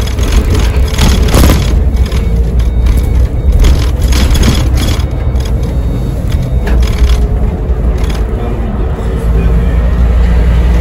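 Iveco Crossway Line bus under way, its Iveco Cursor diesel engine and ZF six-speed gearbox running with a steady drone and whine, heard from the driver's cab with sharp rattles now and then.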